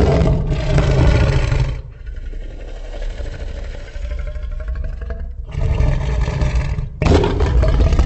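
Designed Indominus rex creature roar: a deep roar that drops into a quieter low rumbling growl about two seconds in, then loud roaring again from about five and a half seconds, broken briefly and restarting near the end.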